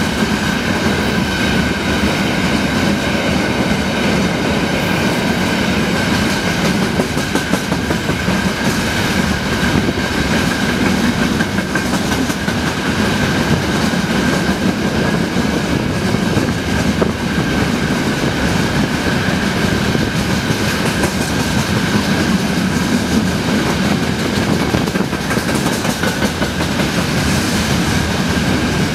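Freight train of open gondola wagons rolling steadily past close by: wheels rumbling and clattering over the rail joints, with a thin steady high ring above the rumble.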